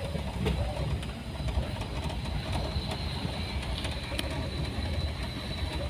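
Vehicle cabin noise while driving: a steady low rumble of engine and tyres on the road, with a few sharp clicks and rattles.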